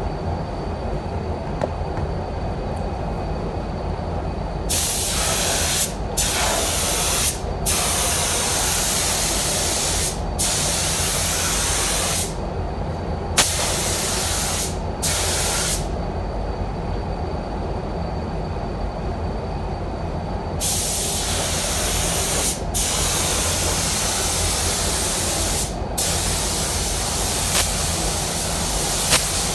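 SATA Jet 5000 RP spray gun hissing as it lays on clearcoat in passes. The hiss starts about five seconds in, cuts off briefly between strokes and pauses for a few seconds in the middle. A steady low rumble of the spray booth's air flow runs underneath.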